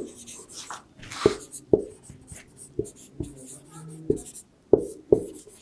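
Marker pen writing on a whiteboard: the tip taps the board sharply several times as each stroke starts, with faint scratchy rubbing of the felt tip between strokes.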